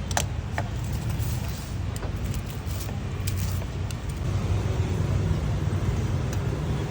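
Street traffic rumbling steadily, with a few brief light clicks.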